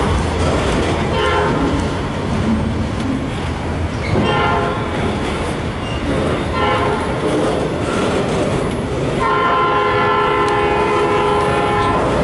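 A CN freight locomotive's air horn sounding a grade-crossing signal: two long blasts, a short one, then a final long blast held as the train passes, over the steady rumble and clatter of the freight train's wheels on the rails.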